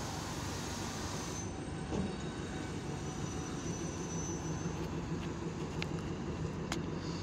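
DEMU passenger train approaching along the platform, its diesel engine and wheels giving a steady rumble. A faint high squeal comes in from about two and a half seconds in for a couple of seconds, and a few sharp clicks come near the end.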